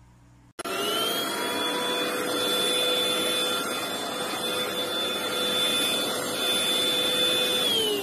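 SwissThomas X4896R cordless stick vacuum's brushless motor running at suction, a steady rushing noise with a high whine. It starts about half a second in, the whine rising briefly to pitch, and near the end the whine falls as the motor slows.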